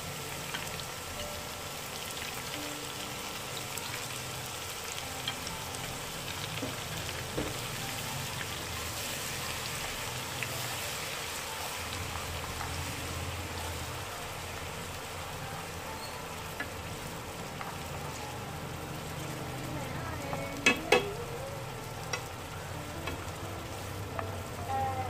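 Minced garlic and shallots frying in a wok of hot cooking oil: a steady sizzle, with wooden chopsticks stirring through it. Two sharp knocks come close together near the end.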